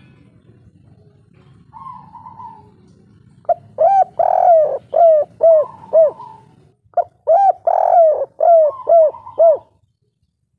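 Spotted dove (tekukur) cooing in its 'kuk 3' song: two loud phrases of about six coos each, a second apart. A fainter, higher cooing from a second dove comes in before and under the phrases.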